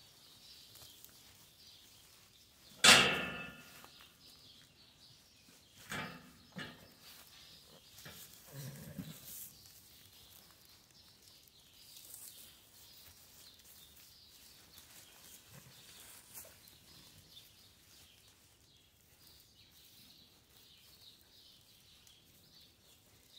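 Sheep bleating and shifting about while a ewe is caught and handled, with a loud sudden knock about three seconds in and a couple of lighter knocks around six seconds.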